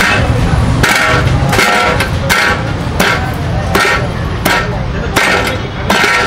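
Heavy wooden mallet pounding cooked shredded meat in a large aluminium pot, about eight even thuds, one every three-quarters of a second: the meat being beaten to a paste for harees.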